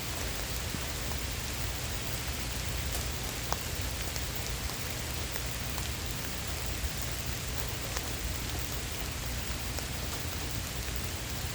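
Steady heavy rain falling, with a few sharp ticks of single drops close to the microphone.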